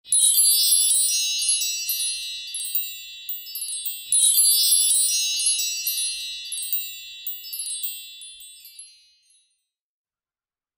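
Bright, high-pitched chimes tinkling, struck in two clusters about four seconds apart, each ringing out and fading away to silence.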